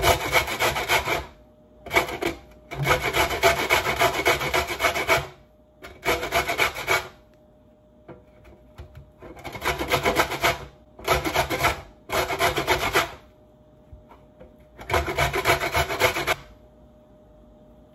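Pumpkin skin being rasped off on a stainless-steel box grater: about eight bursts of rapid back-and-forth scraping, separated by pauses of a second or two, peeling the rind away.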